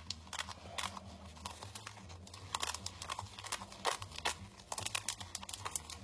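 Fine glitter being poured from a crinkling plastic bag into a plastic cup: irregular small clicks and rustles that get busier about halfway through.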